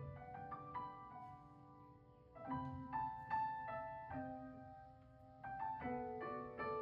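Solo acoustic piano playing phrases of notes and chords. The playing thins to a soft lull about two seconds in, comes back with struck chords, softens again near the five-second mark and picks up once more near the end.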